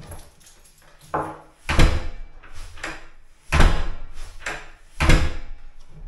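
Newly hung fire door being shut into its frame against the new door stops: three heavy thuds, the first just under two seconds in, then about every one and a half seconds, with a lighter knock just before the first.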